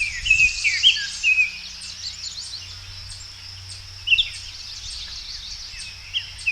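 Several small songbirds chirping and twittering, a dense flurry of quick high calls in the first second or so, then scattered chirps, over a steady high hiss.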